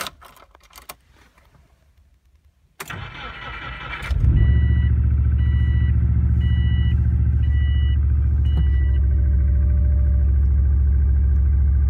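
A 2002 Subaru Impreza 2.5 TS's 2.5-litre flat-four is cold-started at 8 °F: the starter cranks for about a second and a half and the engine catches about four seconds in, then runs steadily at a fast cold idle with piston slap, the classic Subaru cold-start knock. A dashboard warning chime beeps five times just after it starts.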